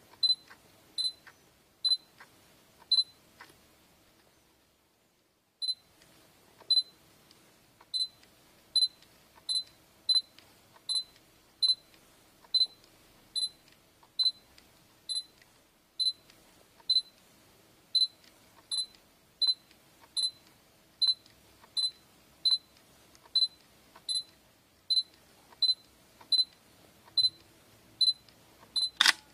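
Sony a6000's focus-confirmation beep: short high beeps repeating as focus locks again and again, about one a second at first and nearly two a second later on. The beeps break off for a second or two a few seconds in, and a louder click comes near the end.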